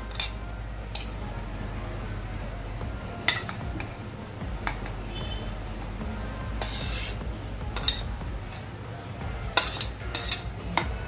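Steel spoon and steel plate scraping and clinking against a steel mixer-grinder jar as food is pushed in. Scattered sharp clinks a second or two apart, with one longer scrape about two-thirds of the way through.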